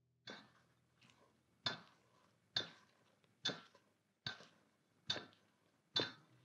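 Spatula knocking against a stainless steel mixing bowl with each stroke while folding cornbread batter: eight light knocks, each with a brief metallic ring, about one a second.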